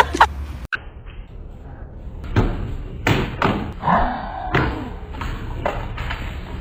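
A series of thumps and knocks, about two a second, starting a couple of seconds in.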